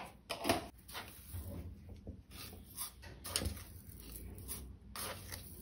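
A few faint clicks and knocks as a steel sugar tin is handled and tipped over a steel bowl of mango pulp.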